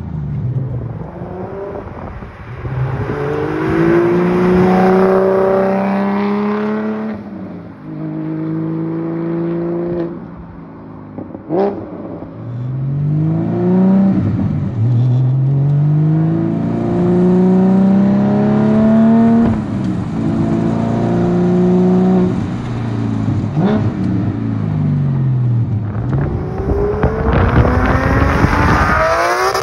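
Porsche 718 GT4's 4.0-litre flat-six through an aftermarket race exhaust and sport headers, accelerating hard. The revs climb and drop back at each gear change, several times, heard from inside the cabin. Near the end it is heard from the roadside as the car pulls away.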